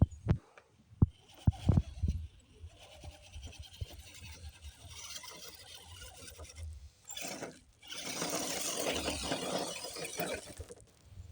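An RC scale crawler truck moving over rough ground: several sharp knocks in the first two seconds, then scraping and rubbing, louder for the last few seconds.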